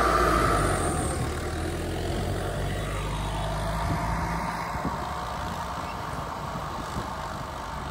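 Tractor engine running as it pulls a Maschio Gaspardo pneumatic maize planter across the field. A steady whine and the engine are loud at first, then fade during the first second or two as the rig moves away, leaving a steady engine drone.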